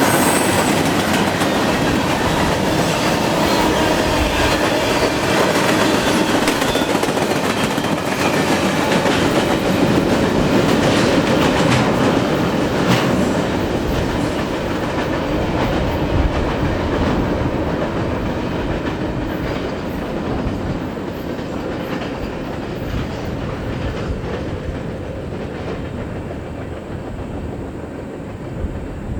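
Freight cars of a long CN freight train rolling past, steel wheels clicking and rumbling over the rail joints. The sound fades gradually through the second half.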